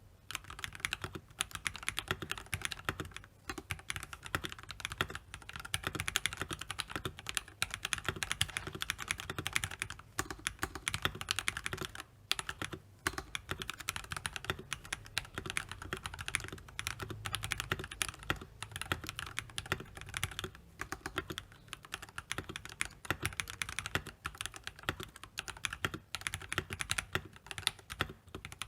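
Continuous fast typing on a VortexSeries GT-6 mechanical keyboard fitted with lubed Jwick Black linear switches and Maxfit67 keycaps: a dense stream of keystroke clacks, broken by a few brief pauses.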